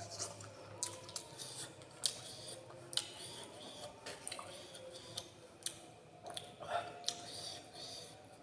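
Close-miked chewing of crunchy food, with sharp irregular crunches and clicks every half second or so.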